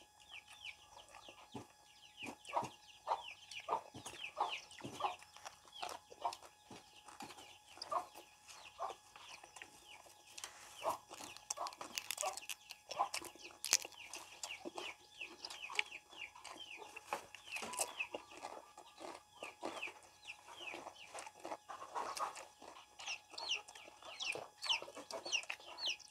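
Chickens clucking: a long string of short, falling calls a few times a second, with scattered sharp clicks among them.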